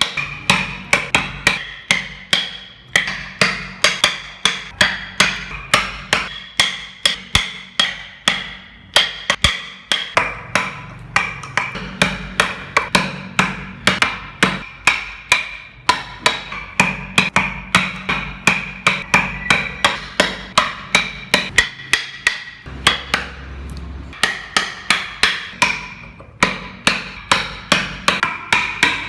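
A hammer striking again and again at an even pace, about two to three blows a second, each blow with a short metallic ring.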